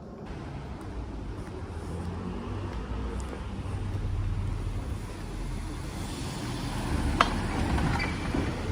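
Road traffic on a city street: a steady low rumble of passing cars that swells through the middle, with a sharp click about seven seconds in.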